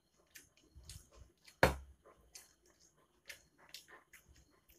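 Close-up eating sounds: chewing and lip-smacking, a scatter of short wet clicks, with one much louder sharp knock about a second and a half in.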